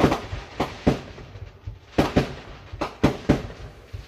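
Aerial fireworks bursting: a rapid, irregular series of about nine sharp bangs, heard from inside a car.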